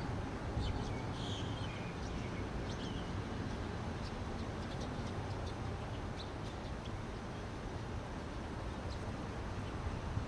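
Birds chirping in short scattered calls over a steady low rumble of outdoor background noise; no shots are fired.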